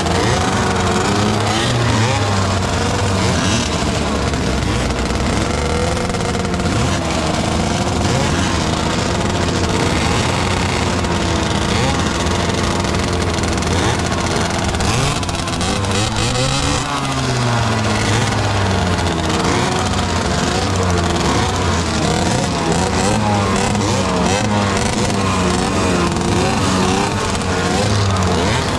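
Several 50cc two-stroke racing motorcycles idling and blipping their throttles at the start line, their engine pitch wavering up and down, with one rev rising and falling about halfway through.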